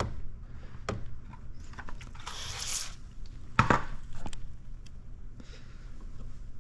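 Hands working paint protection film on plastic bumper trim: a few light knocks and clicks, a louder one past the middle, and a brief high hiss about two seconds in.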